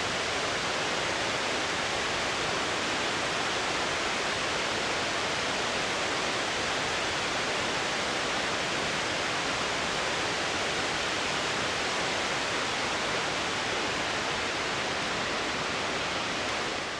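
Steady, even rush of flowing river water from the Gauley River.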